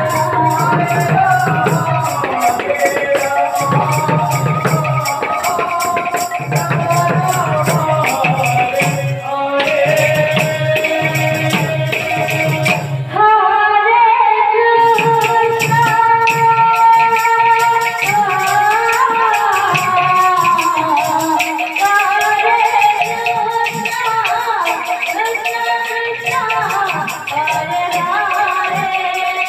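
Live kirtan music: voices singing a devotional melody over a rhythmic barrel-drum beat and steady jingling percussion. About 13 seconds in, the drum falls back and a louder sung line carries on over the jingles.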